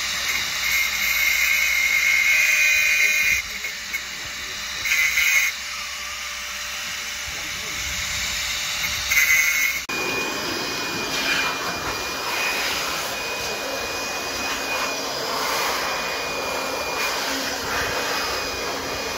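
Handheld angle grinder running with a steady whine. It bites in three times with a loud high-pitched scream, longest in the first few seconds, then briefly twice more. About ten seconds in the sound changes abruptly to a steady noisy hiss of other site noise.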